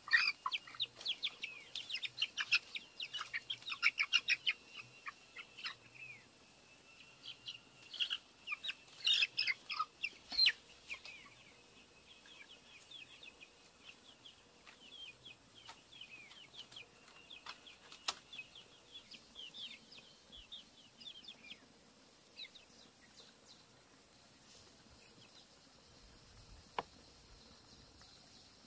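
Young chickens cheeping and clucking: a dense run of short, high, falling calls for about the first ten seconds, thinning to scattered calls after that.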